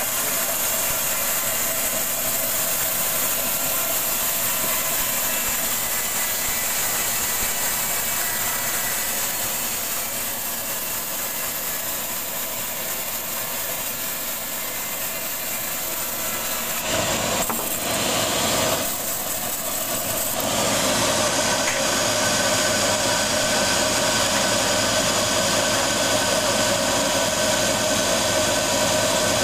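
Engine-driven portable band sawmill running steadily while its blade saws through rambutan wood. A few brief knocks come about two-thirds of the way through, after which the machine runs on steadily and a little louder.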